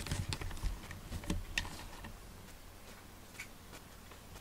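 Hands petting and scratching a cat's neck fur around its fabric collar: soft rubbing with a quick run of light clicks and knocks in the first couple of seconds, then quieter rubbing with one more click.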